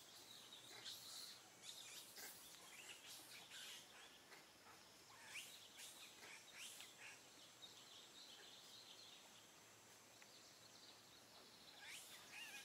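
Faint outdoor background with scattered short, high bird chirps, in clusters in the first half and again near the end.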